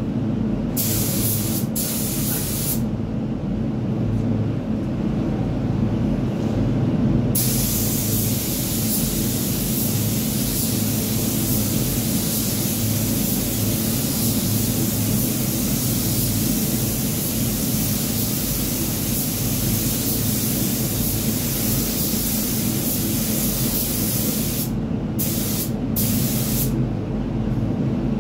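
Gravity-feed paint spray gun hissing as compressed air atomises the paint, stopping for a few seconds early on and in a couple of short breaks near the end as the trigger is released. Underneath is the steady low drone of the spray booth's air extraction.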